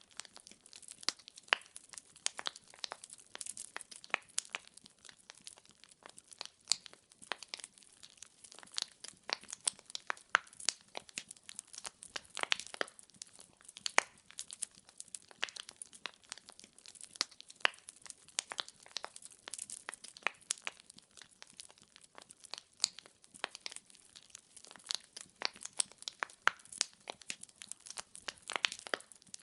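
Wood fire crackling: burning logs give off a dense, irregular stream of sharp pops and snaps over a soft hiss.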